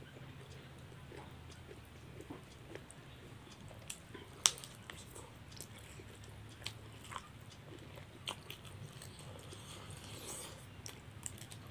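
A person chewing rice and meat with the mouth close to the microphone: wet smacking and scattered short clicks of the lips and tongue, with one sharp click about four and a half seconds in.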